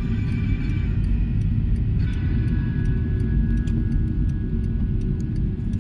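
Car cabin road noise while driving on a rain-soaked road: a steady low rumble of tyres and engine, with light scattered ticks of raindrops hitting the windshield.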